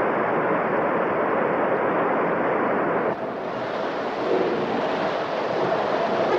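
Steady wind-like rushing of a sail-powered sled speeding over ice and snow. About three seconds in the noise turns brighter and hissier.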